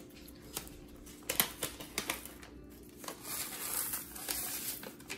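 A paper packet of dry onion soup mix crinkling and clicking as it is handled, then the mix poured out of the packet into a slow cooker crock with a soft rustling hiss from about the middle of the clip.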